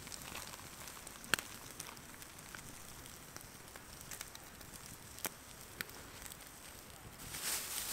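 Small wood campfire burning under a grill grate, crackling with a few sharp pops: one about a second in and two more after five seconds. A brief louder hiss near the end.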